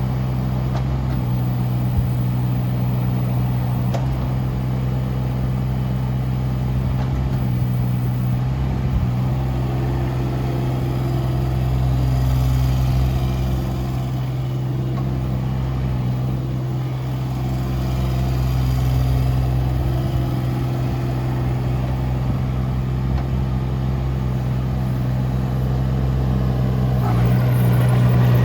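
Kubota U-17-3A mini excavator's diesel engine running steadily, swelling slightly a couple of times and picking up near the end.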